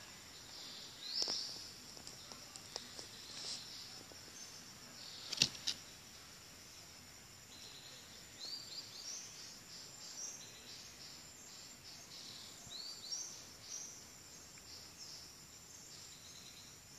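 Forest ambience: a steady high insect drone with short, high bird chirps repeating through it. A few sharp clicks stand out, one about a second in and a louder pair about five seconds in.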